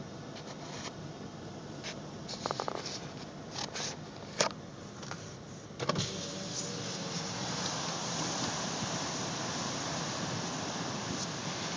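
Small clicks and knocks of handling inside a parked car, then about six seconds in a steady rush of wind and surf comes up louder and carries on.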